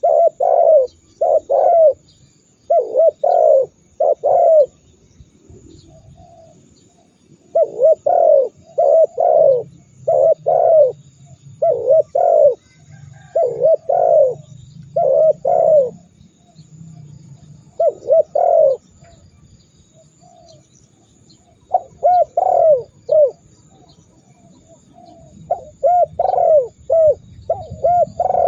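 Spotted dove (tekukur) cooing: deep, loud coo notes in quick groups of two or three, repeated in runs with pauses of a second or two between them.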